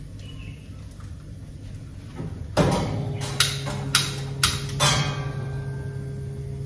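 Gas oven being lit: about five sharp clicks, irregularly spaced, from a stick lighter or the stove's igniter, starting about two and a half seconds in. A steady low hum comes on with the first click and keeps going.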